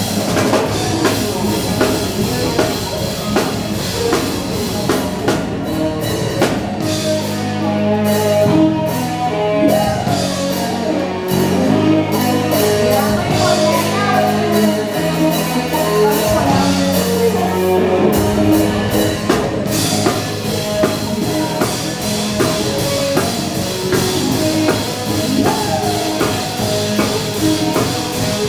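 A band playing an upbeat dance song: drum kit keeping a steady beat under bass and guitar, with singing.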